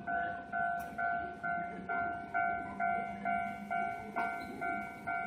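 Japanese railway level-crossing warning bell ringing, one electronic ding repeated about twice a second, each fading before the next, over a low rumble.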